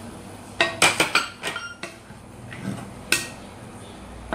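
Wooden spatula stirring vegetables in a metal wok, knocking against the pan with short metallic rings: a quick run of knocks in the first two seconds and one more about three seconds in.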